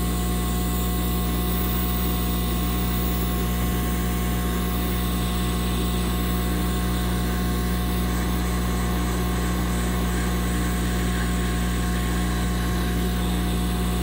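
Handheld heat gun running steadily, its fan blowing hot air to shrink heat-shrink tubing: an even rush of air over a steady low hum.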